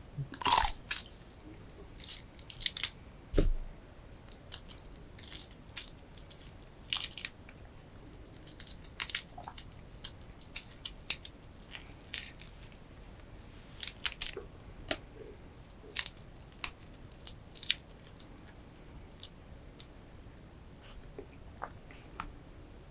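Close-miked eating of a seafood boil: biting and chewing with irregular sharp clicks and crackles, some louder than others.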